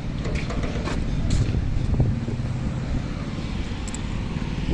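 Shipyard background noise: a steady low machinery rumble with a few light knocks and clanks.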